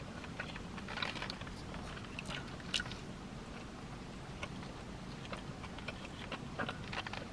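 A person chewing and biting food close to the microphone: irregular soft wet clicks and smacks of the mouth, sharpest about a second in, near three seconds and near the end.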